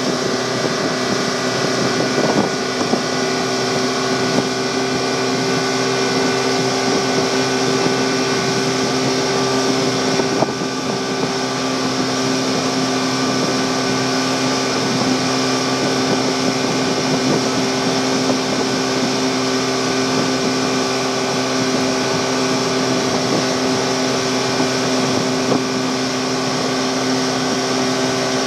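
Motorboat engine running steadily at speed with a constant drone, over the rush of water from the wake and wind on the microphone.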